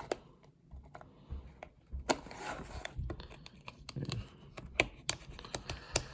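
Cardboard card-deck box and its packaging being handled and carefully opened: scattered light clicks and taps with short rustles of card and plastic.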